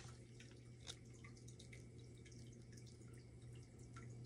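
Near silence: a low steady hum with a few faint ticks, the clearest one right at the start as a tarot card is laid down on the wooden table, another about a second in.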